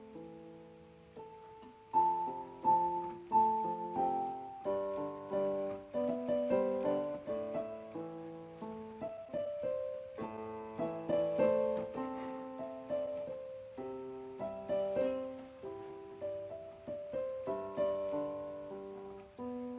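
Background piano music: a slow melody of struck notes that ring and fade, with chords beneath.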